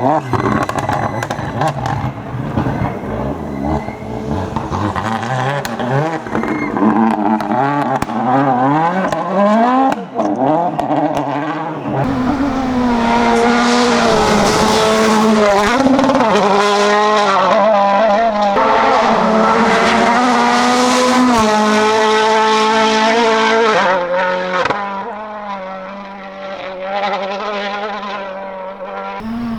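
Toyota Yaris WRC rally car's 1.6-litre turbocharged four-cylinder engine driven hard, its pitch climbing and dropping again and again as it shifts through the gears. From about twelve seconds in it holds high revs for a long stretch, then eases off near the end.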